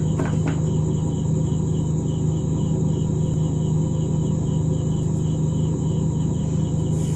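Steady low background hum with a faint, even, high-pitched chirping like a cricket, about three chirps a second.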